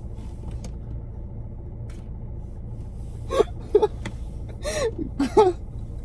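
A man's stifled laughter: a few short breathy giggles about three seconds in, then a second run about a second later. Under it runs the steady low hum of the car, heard inside the cabin.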